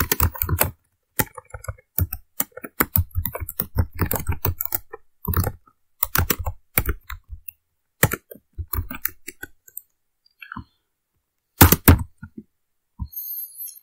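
Typing on a computer keyboard: quick, irregular bursts of keystrokes with short pauses, and the loudest strikes about two seconds before the end.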